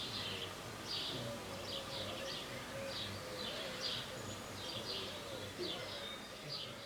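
Small birds chirping, short high notes repeating in quick clusters throughout, over a low steady background noise.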